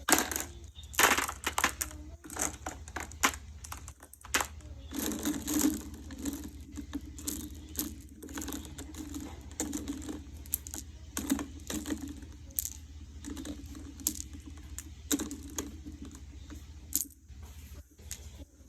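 Marbles clicking and clattering against one another in quick irregular runs, with a low rumble at times as they roll.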